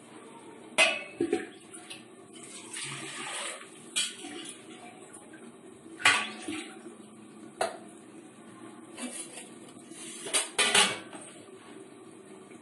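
Metal utensils clanking against a steel cooking pot, with several sharp clanks a second or two apart and a quick cluster of clanks near the end.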